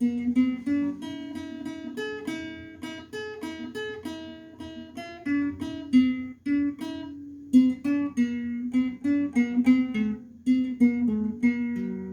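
Acoustic guitar music, a steady run of plucked notes, each ringing out and fading, several a second.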